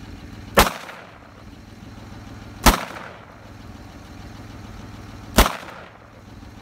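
.357 Magnum handgun fired three times, about two to three seconds apart, each sharp shot followed by a short echo.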